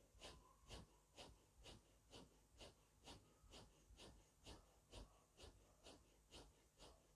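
Faint, rhythmic, forceful breaths, about two a second and very even: the breath-strokes of silent zikr (zikr-e-khafi), in which 'Allah-Hu' is struck with each breath.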